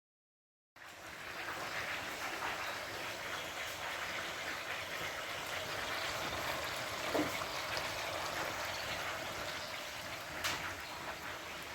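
Steady rush of running water, like a stream, starting suddenly under a second in.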